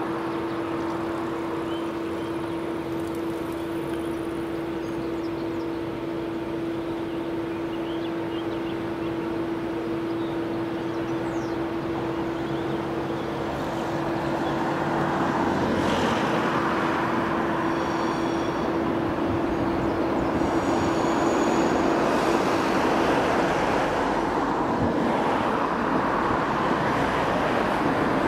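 A steady hum from the standing Captrain electric locomotive, joined about halfway through by the growing running noise of an approaching red regional multiple unit, which gets louder as the train draws near.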